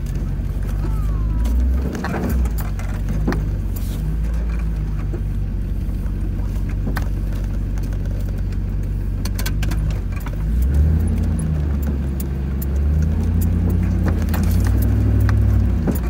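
1997 Land Rover Defender 90's 4.0 V8 engine pulling under load as the truck climbs a steep dirt mound, its note rising about two-thirds of the way in. Scattered clicks and rattles from the truck jolting over the rough ground.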